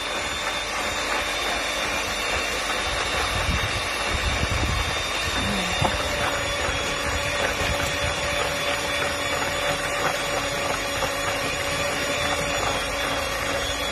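Electric hand mixer running with a steady motor whine, its beaters whipping cake batter as the flour is worked in.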